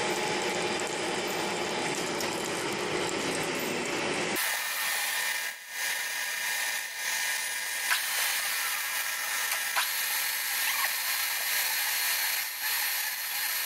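Jig-borer spindle turning a twist drill that is cutting out a broken tap jammed in a cylinder head's spark plug hole: steady machine running with metal-cutting noise. The sound changes abruptly about four seconds in, to a thinner, higher hiss with a few faint ticks.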